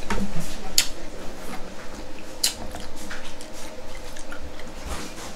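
Close-miked eating of a buttery seafood boil: wet, squishy chewing and sucking, with a few sharp clicks of crab shell being cracked.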